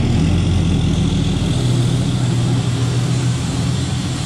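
2014 Ram pickup's 6.7 L Cummins inline-six turbodiesel running steadily at low speed as the truck rolls away, a deep, even drone.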